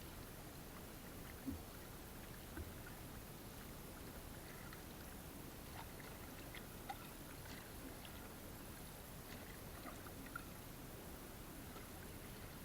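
Faint lapping and trickling of water, with a couple of soft knocks in the first few seconds and scattered small ticks.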